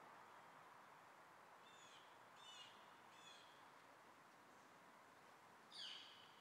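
Red-vented bulbul calls: three short chirps in quick succession about two seconds in, then a single louder call near the end, over a faint steady hiss of background noise.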